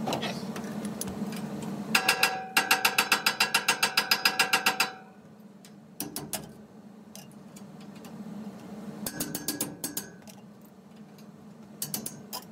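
A socket wrench ratcheting quickly for about three seconds, each click ringing metallically, as the pulley's jacking bolts are worked to free the worn pulley from the blower shaft. Then come a few sharp metal knocks from a hammer striking the wrench on the pulley hub, over a steady low hum.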